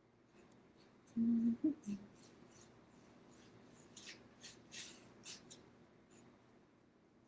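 Small paintbrush stroking paint onto a paper plate: a run of soft, short brushing scrapes. About a second in there is a brief low hum from a voice, which is the loudest sound.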